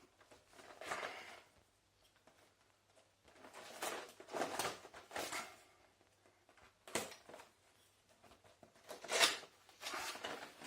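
Cardboard packaging of a boxed model locomotive being opened and handled: a run of separate short rustles and scrapes with pauses between them, the sharpest about seven and nine seconds in.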